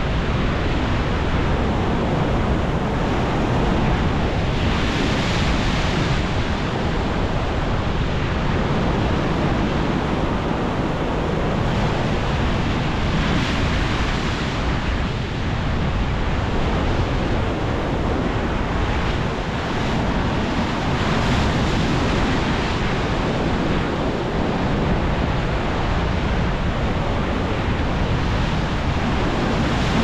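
Pacific Ocean waves crashing against rocks: a continuous wash of breaking surf that swells with a fresh surge of white water about every eight seconds.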